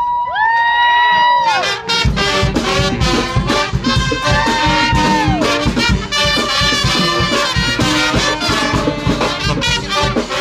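Brass band playing. A held high horn note swells in at the start and slides down about a second and a half in, then a fast, busy beat of short strikes takes over under the horns, with another held note sliding down a little after four seconds.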